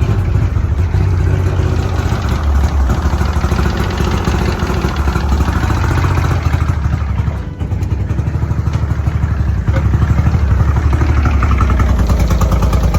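1994 Mercury 90 HP two-stroke outboard motor running steadily at a fast idle, being run on carb cleaner to clean it out. It dips briefly a little past halfway, then runs a bit harder.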